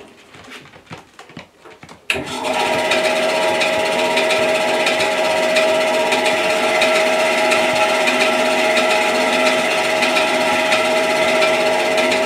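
Record Power BS250 10-inch bandsaw switched on about two seconds in, then running steadily with an even hum and a strong steady tone. Its blade has a slight kink that shows a little at the side and bottom guide bearings.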